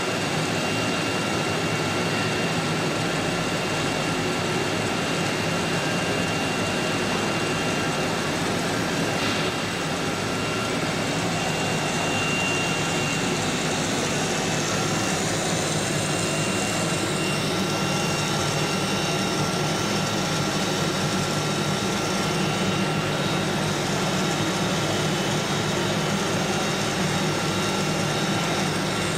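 Steady drone and rushing noise of running machinery, with a few faint high whining tones held constant throughout.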